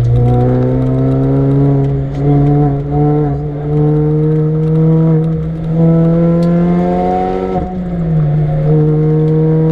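Supercharged Mini Cooper R53's 1.6-litre four-cylinder engine pulling hard, its pitch climbing steadily for most of the stretch. About three-quarters of the way through the pitch falls sharply, then holds steady.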